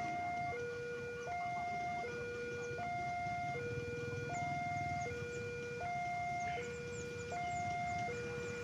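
Level-crossing warning alarm sounding its electronic two-tone signal, a low and a high note alternating about every three-quarters of a second, warning that a train is approaching, over a low rumble of background traffic.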